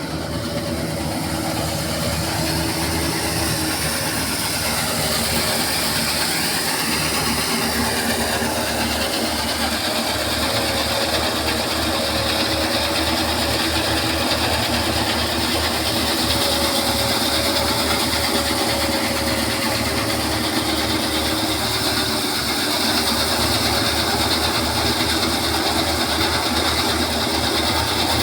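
A small engine running steadily under a fast, even chugging, with a few held tones that shift slightly in pitch.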